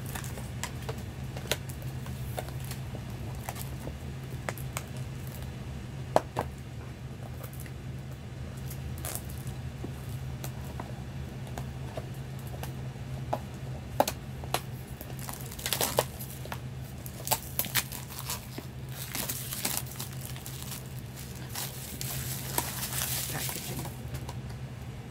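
Plastic wrap on a cardboard toy box crinkling and tearing as fingers pick at it and peel it off, with scattered clicks and taps from handling the box. The crinkling gets louder in stretches in the second half.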